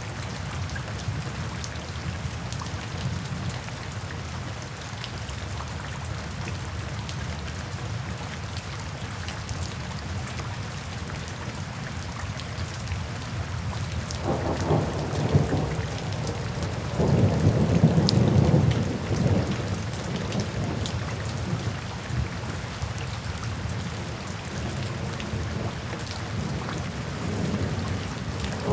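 Steady heavy rain drumming on a tin roof, with thunder rumbling twice about halfway through.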